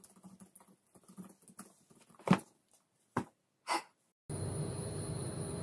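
Short calls from a pet animal, three of them, the first the loudest, after a couple of seconds of faint small sounds. About four seconds in, a steady hiss with a thin high tone takes over.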